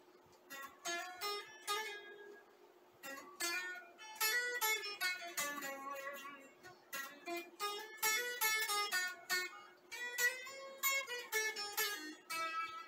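Golden electric guitar played through a Boss ME-80 multi-effects unit into a small Frahm amplifier: picked single-note melody lines in quick runs, with a short pause about two and a half seconds in. A steady hum sits under the notes.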